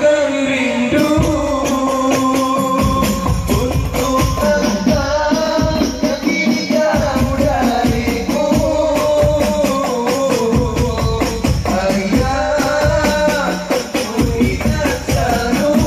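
Live hadroh sholawat performance: male voices sing a sustained melody through microphones over frame-drum percussion. The deep drum beats enter about a second in and fill out from about three seconds.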